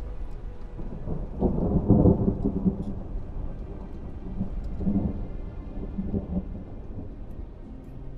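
Thunder rumbling over steady rain, a sound-design effect in an audio drama, swelling about a second and a half in and again around five seconds.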